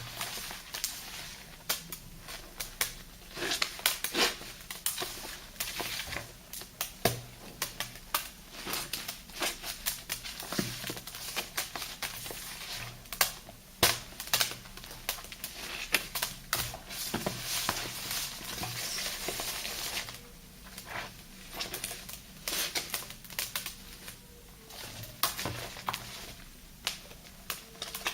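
Gritty paste of thick soap lather and sea salt being worked and squished, giving irregular crackling, clicking and wet crunching, with a denser hissing stretch of a few seconds past the middle.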